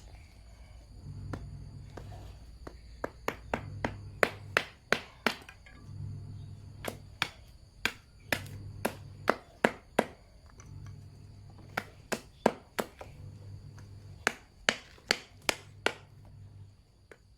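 Repeated sharp blows of a hand tool during hoe repair, struck in irregular runs of several hits a second, each with a short ring.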